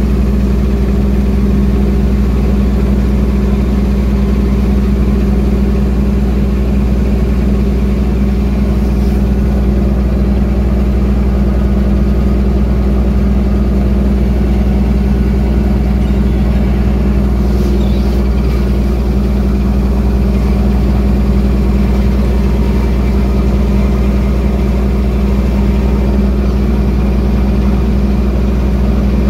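Fishing trawler's engine running with a steady, loud, unchanging low drone.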